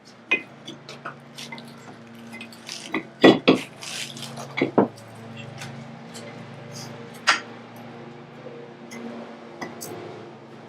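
Metal tools and parts clinking and knocking during hands-on work, with a few sharper knocks in the middle, over a faint steady low hum.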